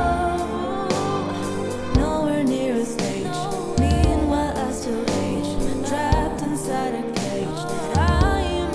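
Pop song with a sung lead vocal over a backing track, a heavy low beat falling about every two seconds.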